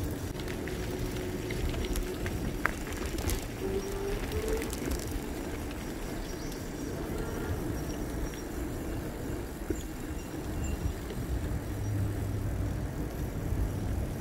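E-bike ride: steady rumble of wind on the microphone and rolling noise, with a few small clicks early on and a faint thin whine that rises briefly about four seconds in.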